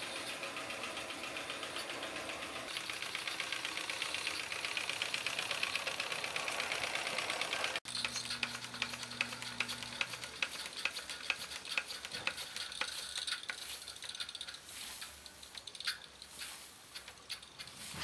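Antique Märklin toy live-steam compound traction engine running, with a fast, even mechanical clatter from its cylinders and valve gear. About halfway through the clatter turns into sharper, separate ticks, which thin out and get quieter near the end.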